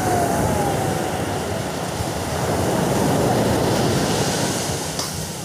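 Ocean surf breaking and washing up the beach: a steady rush of water that swells a little about three seconds in.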